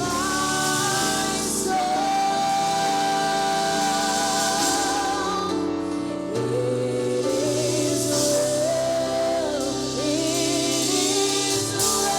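Gospel song sung by a group of voices over instrumental backing, with long held notes that waver in vibrato and a short break between phrases midway.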